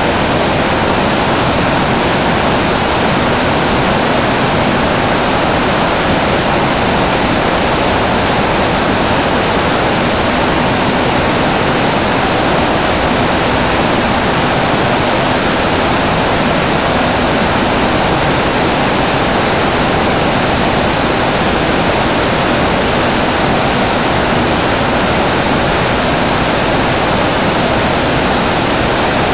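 Many weaving looms running together in a weaving shed: a loud, steady, dense din with no separate beats or pauses.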